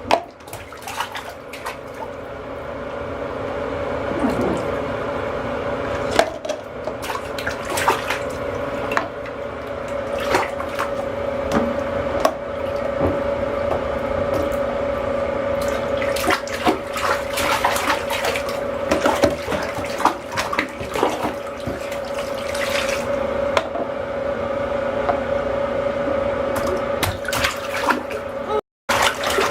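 Bathwater splashing and sloshing in a bathtub, with repeated short splashes over a steady watery hum.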